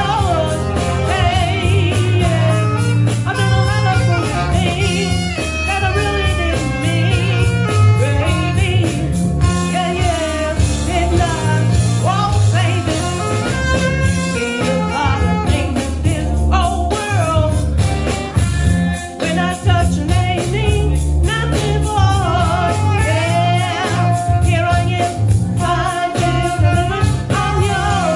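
Live vocal music: a woman singing into a microphone with a saxophone, over bass and a steady drum beat.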